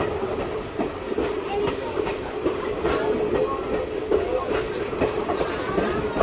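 Steam-hauled excursion train behind 2-8-0 locomotive 3716 running, heard from aboard: a steady rumble with a sustained tone and sharp rhythmic beats about twice a second.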